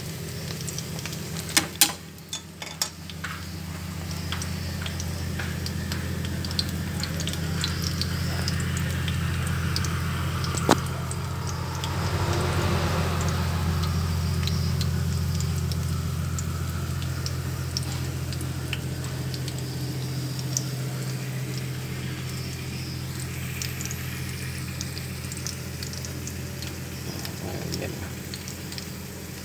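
Minced-shrimp patties frying in hot fat in a pan on low heat: a steady sizzle with fine crackling, over a steady low hum. A few sharp clicks come about two seconds in, and one more about eleven seconds in.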